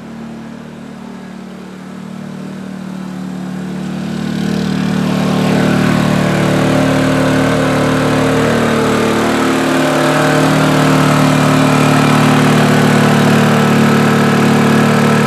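Honda EU2000i Companion inverter generator's small four-stroke engine running steadily under load, getting louder over the first few seconds and then holding steady.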